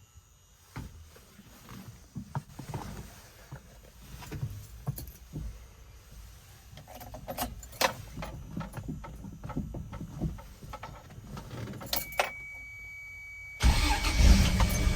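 Scattered clicks and knocks, then about a second from the end the Toyota Land Cruiser FZJ75's 4.5-litre inline-six fires on a cold start, catching at once and running at a steady idle.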